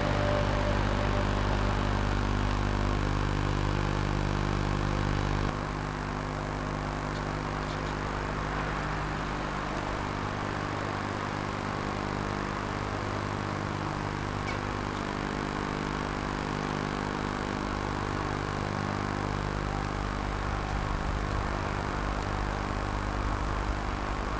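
Steady low hum with a background hiss; the level steps down slightly about five seconds in.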